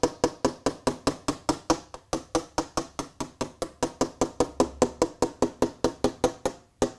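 A spoon tapping rapidly and steadily on model railway track, about six taps a second, with a brief pause near the end. The tapping vibrates loose ballast off the sleepers so it settles between them.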